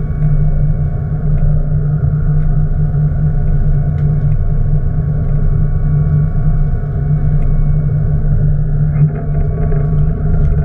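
Boat engine running steadily with a low drone, a thin steady whine sounding above it.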